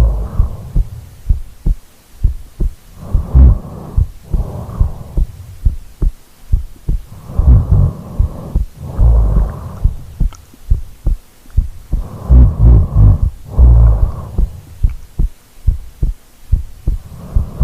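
A sleeping woman's heartbeat, a steady run of low thumps heard close up because her body is lying against the microphone. Slow, deep breaths in and out sound over the thumps every four to five seconds.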